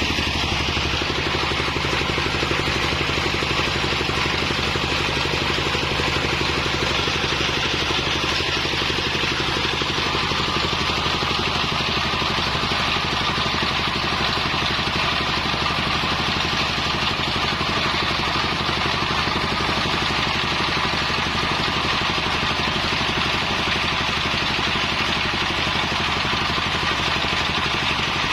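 Circular saw rig running steadily with an even, engine-like drone that does not let up.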